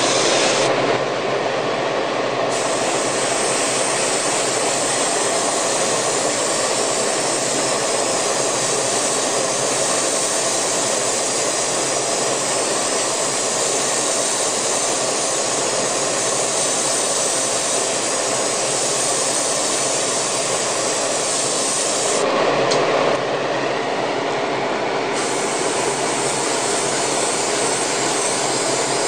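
Airbrush spraying paint: a steady hiss of air. The high part of the hiss drops away twice, about a second in and for a few seconds near the end, leaving a lower steady rush.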